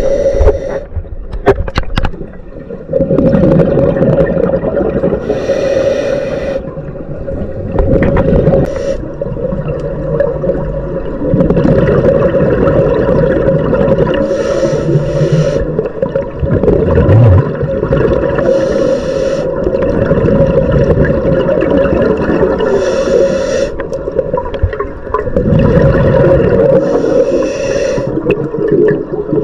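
Underwater audio of scuba diving: a diver's regulator breathing, with exhaled bubbles hissing and gurgling in bursts every few seconds over a steady low hum.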